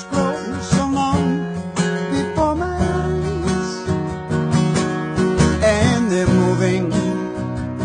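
Acoustic guitar being strummed in a steady rhythm, with a man singing over it.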